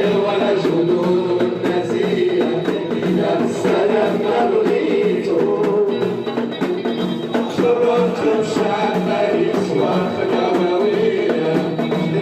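Live music in a Middle Eastern or folk style: singing over instruments and hand percussion, playing on without a break.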